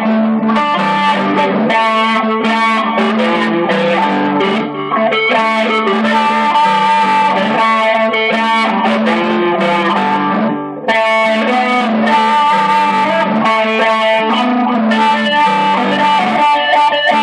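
Electric guitar playing a melodic tune, notes ringing over a held low note, with a short break about ten and a half seconds in before the playing resumes.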